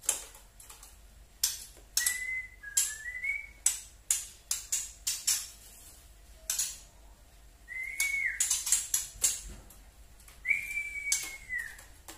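Young white-rumped shama (murai batu trotol) giving its 'tretekan' call: sharp clicking notes, some in quick runs, mixed with a few short whistles. One longer whistle slides down near the end.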